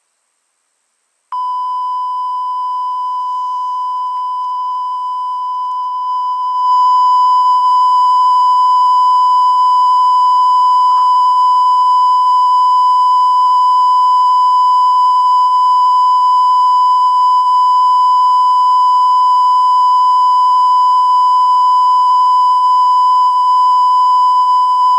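A steady electronic test tone, one unbroken beep-like pitch. It starts about a second in and steps up louder about six seconds in.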